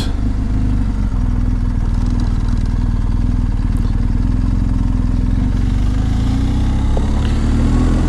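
BMW GS boxer-twin motorcycle engine running steadily under way, rising in pitch near the end as the bike speeds up.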